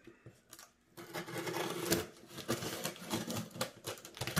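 Knife blade slicing through the packing tape along a cardboard box's seam: a rough, crackling scrape that starts about a second in.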